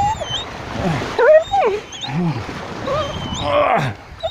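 A dog whining and yelping in short rising and falling calls, with a low growl about two seconds in, while it tugs at a stick in play.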